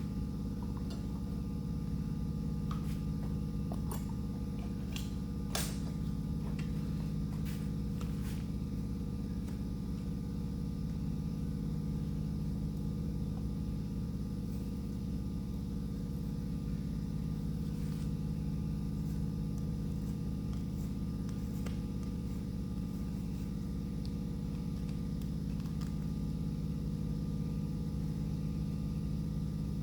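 Electric sander running steadily with a constant motor hum, with a few light clicks about four to six seconds in.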